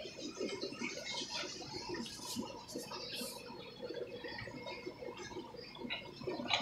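Aquarium water bubbling and trickling, a busy, uneven patter of small splashes, with a few short hissing bursts two to three and a half seconds in.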